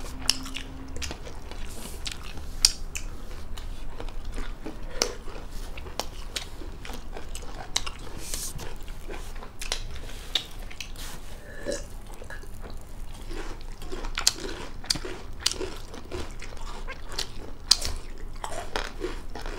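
Close-up mukbang eating sounds: two people chewing and lip-smacking on rice and fried chicken gizzard eaten by hand, with many small irregular clicks. A crunchy bite of raw cucumber comes near the end.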